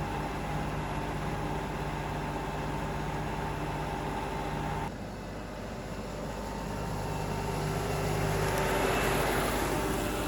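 An engine running steadily, with a low hum and a faint steady whine. About halfway through it cuts abruptly to a similar engine sound that grows louder toward the end.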